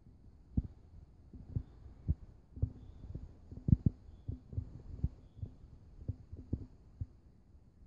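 A string of short, dull low thumps at irregular spacing, about two a second, over a faint steady hum.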